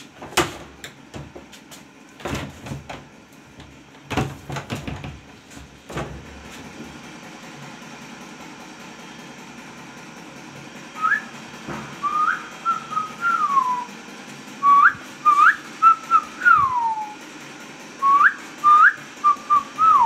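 Indian ringneck parakeet whistling: a run of short, clear notes, quick upward flicks mixed with longer falling glides, starting a little past halfway. A few knocks and bumps come in the first few seconds.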